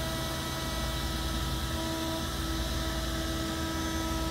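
MillRight Mega V Full Sheet CNC router running a cut in MDF: a steady high spindle whine over the even rush of shop-vac suction.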